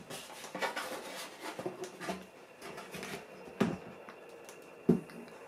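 Cardboard shoebox lid being handled and turned over: faint rustling and scraping, with a light knock about three and a half seconds in and another near the end.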